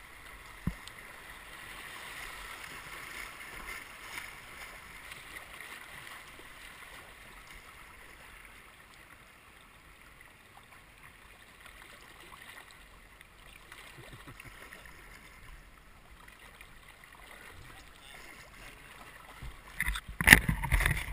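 Steady rushing of moving river water around a whitewater kayak, picked up by a camera on its deck. Near the end comes a burst of loud knocks and scraping as the boat pushes into overhanging branches.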